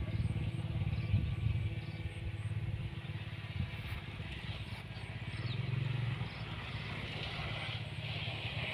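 Distant buzz of a radio-controlled model airplane's OS 15LA two-stroke engine in flight, growing a little louder near the end, under a low rumble of wind on the microphone.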